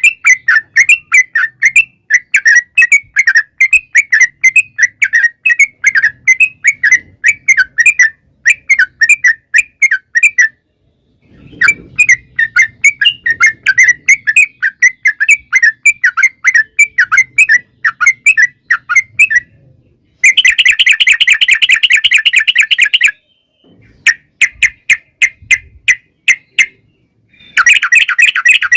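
Yellow-vented bulbul (trucukan) singing its long rolling song: quick runs of short, loud chirping notes, broken by brief pauses. Twice, once past the middle and again near the end, the notes speed up into a fast, dense trill.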